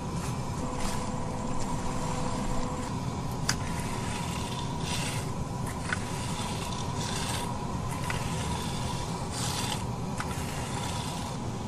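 Asphalt rake scraping through infrared-heated, softened asphalt as the patch is scarified and broken up. The scrapes come as strokes about every two seconds, with a few sharp clicks, over a steady low machine hum.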